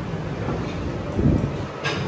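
Steady low background hum of a large indoor food court, with a brief faint voice about a second in and a short click near the end.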